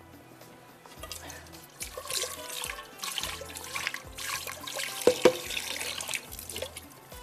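Tap water running into a cooking pot at a kitchen sink as it is rinsed, starting about a second in, with two sharp knocks about five seconds in.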